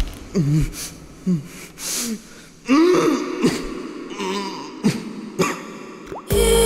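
A teenage boy sobbing in short, shaky gasps, each one wavering up and down in pitch, several times over. Just before the end a sudden loud hit brings in a steady music cue.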